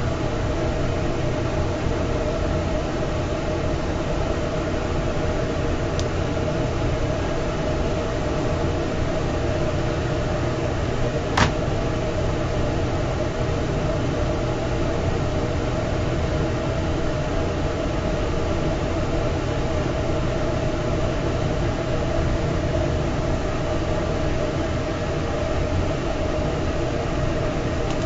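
Steady mechanical hum and whir, like a fan or motor running, with one sharp click about eleven seconds in.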